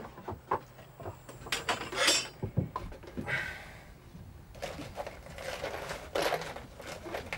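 Clatter and knocks of tools and pieces of wood handled on a wooden workbench, with a few stretches of scraping.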